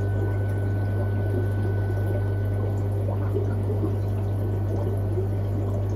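Aquarium filter running: water steadily trickling and splashing over a constant low pump hum.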